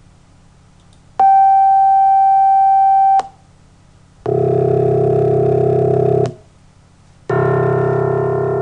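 Computer-synthesised sum-of-sine-tones playback built to imitate a piano's low C1 note. First comes a single steady tone held about two seconds, the loudest sound. Then come two separate steady, non-decaying chords of many stacked pure tones, each about two seconds long, forming the partial-by-partial approximation of the piano sound.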